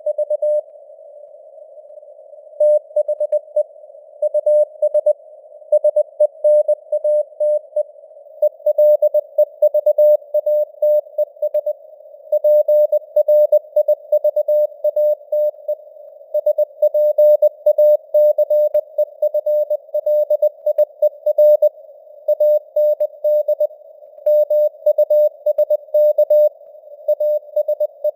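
Morse code (CW) sent at 20 words per minute as a mid-pitched keyed tone of rapid dots and dashes, spelling out news headlines, over a narrow band of simulated radio hiss. The keying stops for about two seconds shortly after the start, then runs on.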